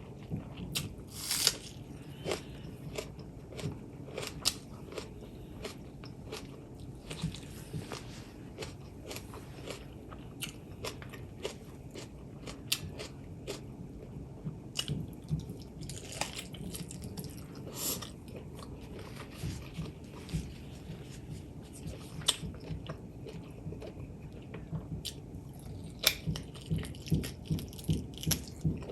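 Close-up eating sounds: chewing, biting and mouth smacks over pork legs and rice, with many short sharp clicks and a quick run of them near the end.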